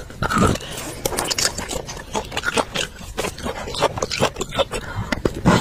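Close-miked wet sucking and slurping at the end of a roasted marrow bone, a quick run of smacking clicks as she tries to draw the marrow out, with a louder smack near the end.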